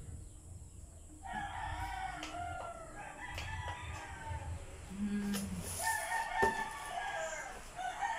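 Rooster crowing, several long calls from about a second in, with a few light knocks and clicks.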